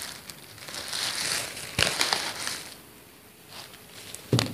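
Crunching and paper crinkling as fingers work through a heap of crisp singju salad on a paper sheet. There is a sharp crackle about two seconds in and a short knock near the end.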